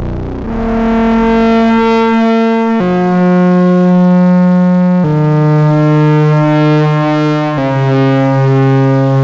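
Moog Spectravox analogue synthesizer playing a single oscillator voice through its filter: four held notes, one after another, each stepping lower in pitch.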